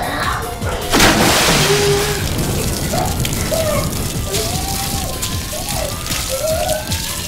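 Water-spray sound effect: a sudden burst about a second in, then a steady hiss of spraying water, over background music.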